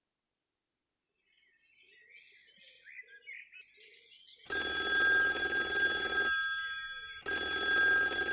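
Faint bird chirping fades in, then a black rotary-dial telephone rings twice, each ring lasting nearly two seconds with about a second's pause between them.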